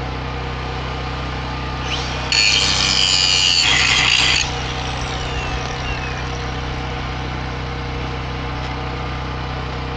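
Portable petrol generator running steadily, with a short burst of a power tool grinding on steel, most likely an angle grinder, for about two seconds starting a little over two seconds in, then winding down.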